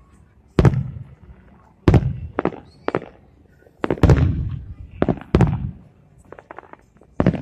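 Aerial firework shells bursting: a series of sharp booms roughly a second apart, some trailing off in a low rumble. Near the end comes a quick cluster of small crackling pops.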